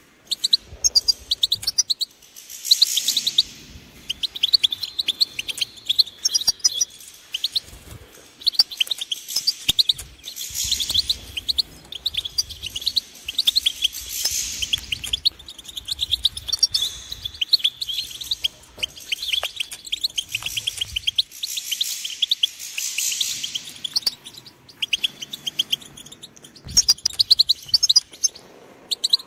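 European goldfinch singing: long runs of rapid, high twittering notes, broken by short pauses between phrases.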